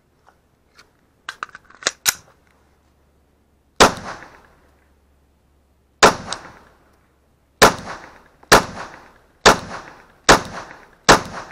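A few light clicks, then a Glock 20 10mm pistol fires seven shots, each with a short echoing tail. The first two come about two seconds apart, the last five in a steady string about one a second.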